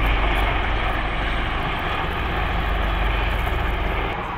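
Military helicopters flying past overhead: steady rotor and turbine engine noise with a strong low rumble, easing off a little near the end.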